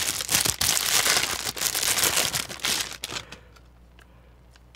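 Clear plastic bubble-wrap sleeve crinkling and crackling as a camera lens is pulled out of it by hand. It stops about three seconds in, leaving a few faint clicks as the bare lens is handled.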